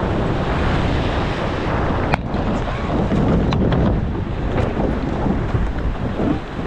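Heavy wind buffeting the microphone over rushing water around a rowed racing boat out on the sea, with one sharp knock about two seconds in and a few fainter ticks after it.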